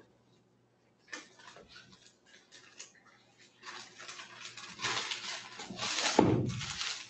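Rustling and light clatter of things being handled at a table, growing busier after about three and a half seconds, with one louder knock about six seconds in.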